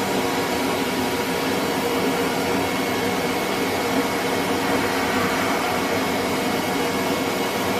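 Bead-blast cabinet running: compressed air and blast beads hissing steadily from the nozzle as they strip old paint off a metal grinder part.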